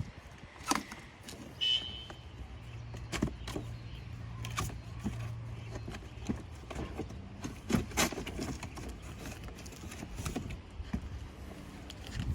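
Cardboard packaging being handled and opened: scattered knocks, taps and scrapes, with a brief squeak near the start and a low hum for a few seconds in the middle.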